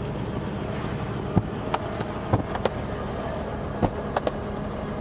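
Steady running hum of a helicopter at idle, with a series of about seven sharp clicks and knocks in the middle as seat belts are buckled.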